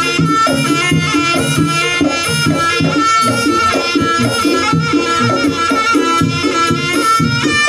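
Live Javanese jaranan gamelan music, with fast kendang drum patterns under a sustained high melodic line.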